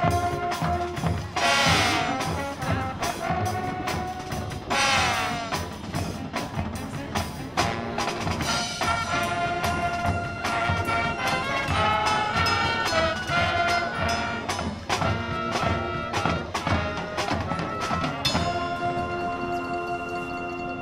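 High school marching band playing live on a football field: brass over drums and percussion, with two sweeping pitch slides about two and five seconds in. Near the end the band holds a long chord that begins to fade.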